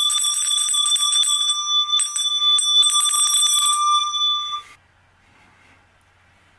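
Small metal hand bell shaken rapidly, its clapper striking many times a second over a steady ringing tone. The ringing cuts off suddenly after about four and a half seconds.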